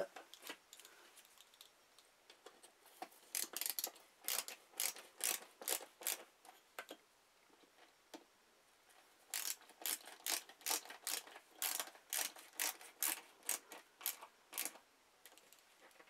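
Ratcheting screwdriver clicking in two runs of about two or three clicks a second as screws holding a ceiling light fixture base are driven tight.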